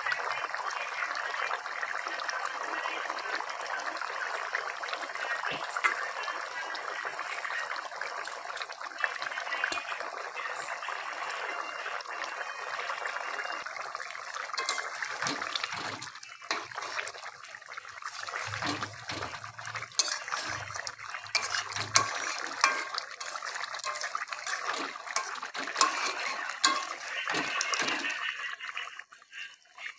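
Rohu fish curry with potatoes bubbling steadily in a kadai. In the second half the bubbling turns choppier, with sharp clicks of a metal spatula against the pan.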